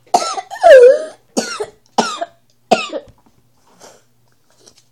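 A young child coughing about five times in quick succession; the second cough is the longest and loudest.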